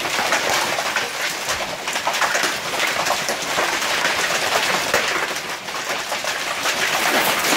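Hail falling steadily: a dense, even clatter of many small stones striking the ground.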